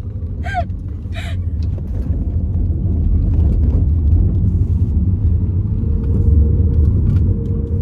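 Low, steady road and engine rumble of a moving car heard from inside the cabin, growing louder about two seconds in.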